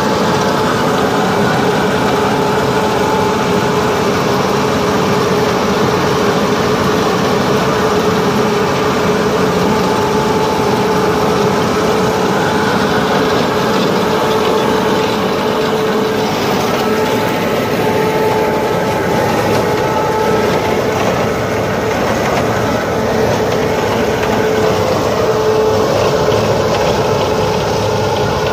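Tractor-drawn Case International hay header cutting alfalfa, with the cutter, reel and conditioner rolls under load. The machinery makes a loud, steady drone with a constant whine.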